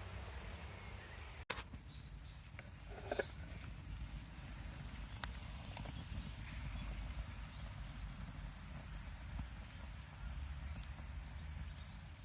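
Outdoor ambience with a steady high-pitched insect buzz, with a low rumble of wind on the microphone underneath and a few light clicks early on.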